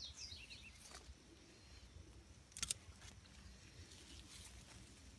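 Pruning shears snipping through an okra pod's stem once, a sharp click about two and a half seconds in, with a fainter snip about a second in. A few faint bird chirps come near the start over an otherwise quiet garden background.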